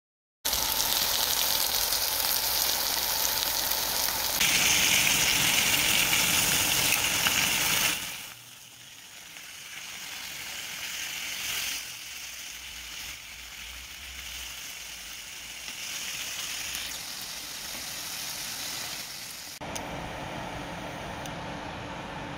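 Bone-in pork chops frying in hot fat in a stainless-steel pan, a steady sizzle. It is loud for the first eight seconds, then drops abruptly to a quieter sizzle.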